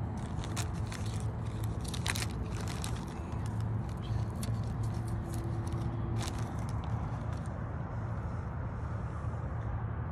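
Steady low outdoor rumble, with scattered crackles and clicks of handling close to the microphone, mostly in the first few seconds and again around six seconds in.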